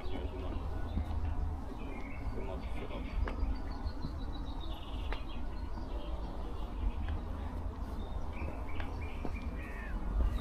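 Birds chirping now and then in short high calls, one sliding down in pitch, over a steady low rumble.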